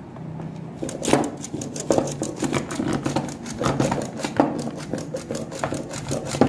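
A yogurt-and-spice marinade being whisked fast in a plastic bowl. A metal whisk clicks and scrapes rapidly against the bowl's sides and bottom, over a low steady hum, starting about a second in.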